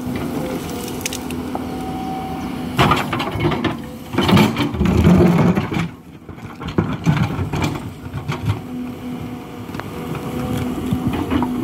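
Hidromek 220LC tracked excavator's diesel engine running steadily under load, with repeated crunching and cracking as the bucket digs and breaks earth, rock and roots.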